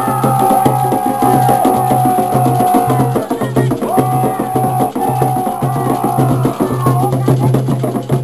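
Afro-Brazilian ritual drumming and chanting: drums beating a steady pulse about twice a second under dense wood-block-like clicking, with voices holding long sung notes.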